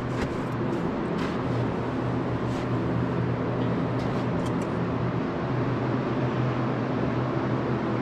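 A steady low mechanical hum of running barn machinery, with a few faint clicks and scrapes as the oil dipstick is drawn out of a Bobcat skid-steer's engine bay.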